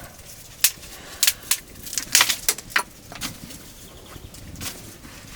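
A series of short, sharp knocks and clatters, bunched in the first three seconds with one more near the end.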